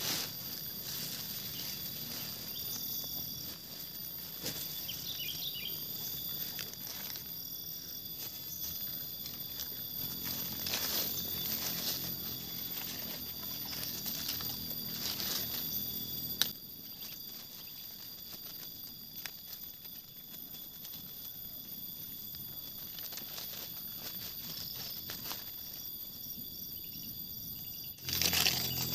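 Outdoor rural ambience: a steady high insect drone, with intermittent rustling and crinkling from handling and a single sharp knock about sixteen seconds in.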